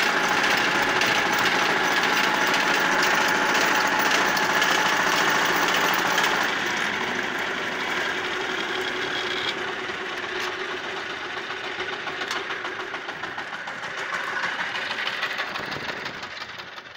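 Shifeng SF350L mini tractor's diesel engine running steadily under load while it drives a 1.4 m rotary tiller through the soil in a low gear. The sound gets quieter about six seconds in and again near the end.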